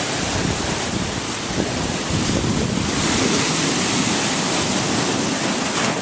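Sea surf washing in steadily, growing a little louder about halfway through, with wind rumbling on the microphone.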